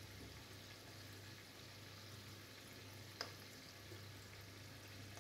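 Faint sizzle and crackle of buñuelos frying in a pan of hot oil, with a single light clink about three seconds in.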